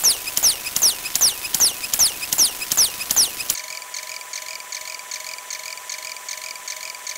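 Synthetic sound effects ticking along with a rapidly counting number display: a quick falling chirp repeated about two and a half times a second, then, about three and a half seconds in, a switch to a steady beep tone with faster high blips on top, about three a second.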